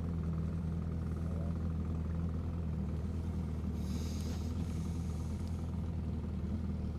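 Boat engine running steadily while under way on the river: a low, even drone, with a faint hiss rising briefly about four seconds in.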